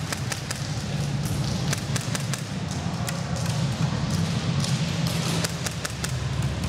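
Scattered sharp snaps of airsoft gunfire and BB impacts, irregularly spaced, over a steady low rumble.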